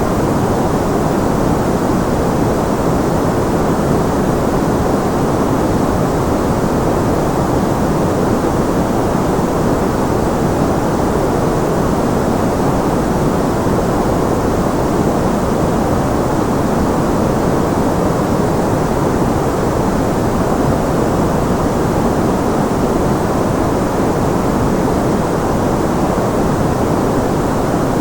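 Steady, unbroken white noise for tinnitus masking: an even rushing hiss, strongest in the low and middle range and thinner in the highs, with no changes.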